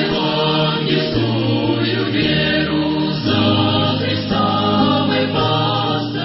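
A choir singing slow sustained chords, changing about once a second, and fading at the end.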